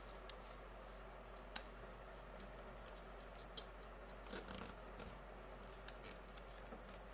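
Sheet of paper being folded and creased by hand: a few faint, short crinkles and taps over a steady low hum.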